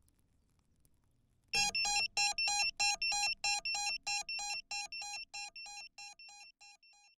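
A repeated electronic beep at one fixed pitch, about four beeps a second, starting suddenly and fading away gradually.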